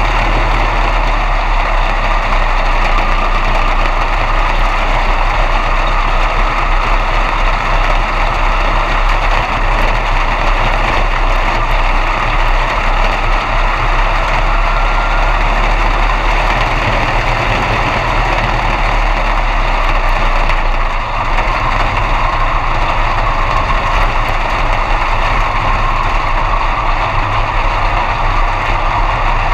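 B-Mod dirt-track race car's V8 engine running steadily at low revs, heard from inside the cockpit.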